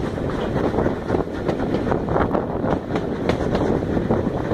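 Steam-hauled heritage train running at speed, heard from a carriage window: steady rolling noise from the coaches on the rails, with irregular knocks, and wind buffeting the microphone.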